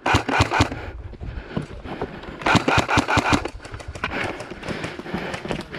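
Airsoft electric rifle firing full-auto bursts, about ten shots a second: a short burst at the start, a longer one about two and a half seconds in, and fainter shots later.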